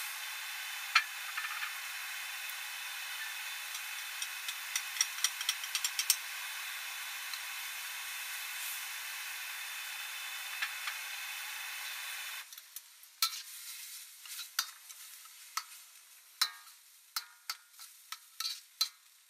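Frog stir-fry with glass noodles sizzling in a wok: a steady hiss with scattered pops. About twelve seconds in the hiss drops away, and a spatula knocks and scrapes against the wok as it is stirred.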